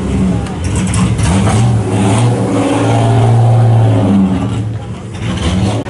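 Rally car engine running as the car moves slowly past, a steady deep note that is loudest midway and then eases off.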